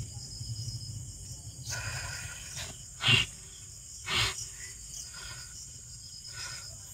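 Crickets chirping steadily at night. About three and four seconds in come two short, louder breathy sounds, with a few fainter ones after.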